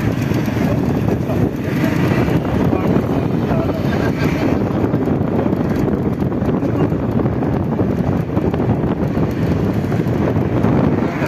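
Shuttle bus under way, heard from inside: a steady rumble of engine and road noise with wind buffeting the microphone and faint voices in the background.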